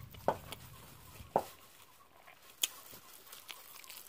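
A chicken clucking twice, about a second apart, then a single sharp click.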